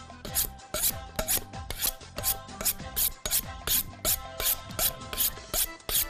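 Kitchen knife blade swiped back and forth along a honing steel, sharpening it: a quick, even run of metallic scraping strokes, about three a second, over soft background music.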